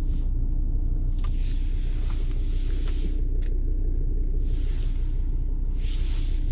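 Volvo V70 D5's five-cylinder turbodiesel engine running steadily at idle, a constant low rumble.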